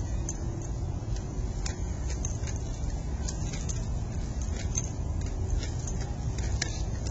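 Skateboard wheels rolling on concrete: a steady low rumble with scattered faint clicks.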